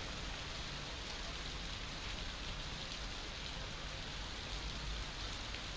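Heavy monsoon rain falling steadily, an even hiss with a low rumble underneath.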